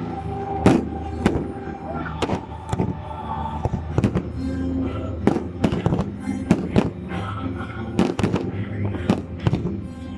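Fireworks display: a dozen or more sharp bangs of bursting shells, irregularly spaced, with music playing underneath.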